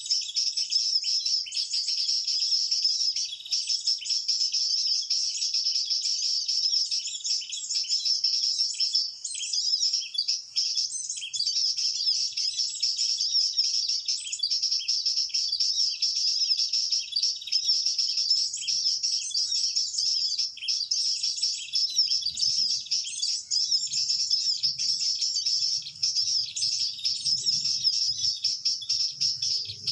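Rapid, unbroken chirping song of a perenjak lumut, the bird being lured, most likely a call recording played on a loop from a Bluetooth speaker as a trapping lure.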